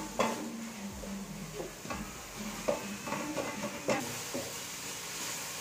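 Wooden spatula stirring and scraping onions and tomatoes as they sauté in an aluminium kadai, with a light sizzle underneath and a knock or scrape against the pan every second or so.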